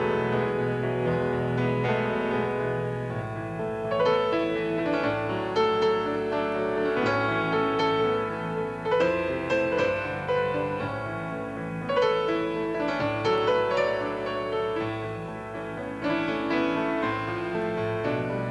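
Instrumental piano music, with chords and bass notes changing every few seconds.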